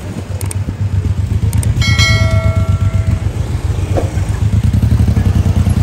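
Motorcycle engine running at low speed with a steady low throb. About two seconds in, a bell rings once, its ringing fading over about a second.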